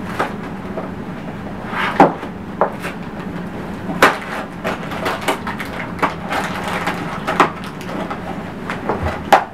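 Cardboard box being torn open by hand: rustling and ripping of the flaps, with several sharp tearing cracks.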